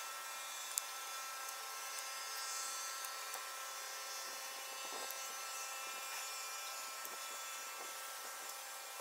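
A steady high-pitched drone of many thin, unchanging tones over a hiss, with a few faint clicks.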